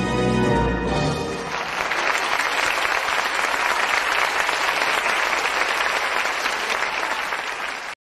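Music ends about a second and a half in and gives way to an audience applauding at the close of a stage dance performance. The applause cuts off abruptly near the end.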